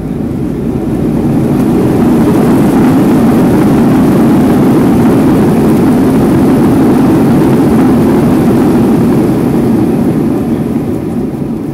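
Boeing 737-800's CFM56-7B jet engines heard inside the cabin, a loud low roar that swells over the first couple of seconds, holds steady, then eases off near the end. This is typical of reverse thrust on the landing roll.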